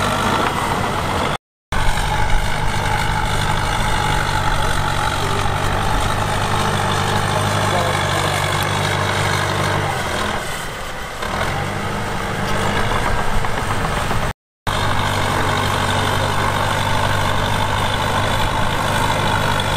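Heavy diesel engine of earthmoving equipment running steadily with a deep hum. The hum eases for about a second midway, and the sound cuts out completely twice for a moment.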